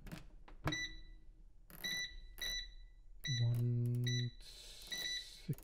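Air fryer control panel beeping as its buttons are pressed to set it: about six short high beeps a half-second to a second apart, with a few clicks near the start and a low hum for about a second midway.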